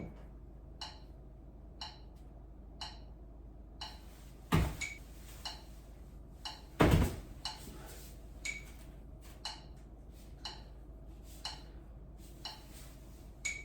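Metronome app beeping once a second with short, ticking beeps that time a handstand hold. Two louder thuds come from the handstand kickups, about four and a half and seven seconds in.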